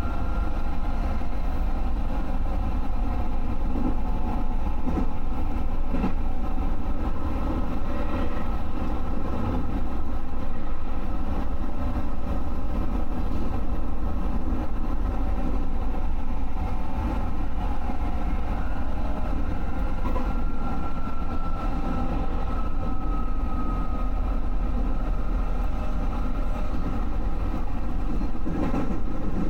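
JR West 221 series electric train running at speed: a steady rumble of wheels on rail, with a thin whine that slides slightly in pitch and a single click about six seconds in.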